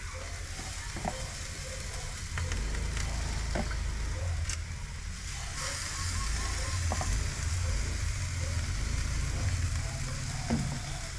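Marinated chicken sizzling on a hot charcoal barrel grill as it is basted and turned. Occasional sharp clicks of tongs against the grate sound over a steady hiss, with a low rumble underneath.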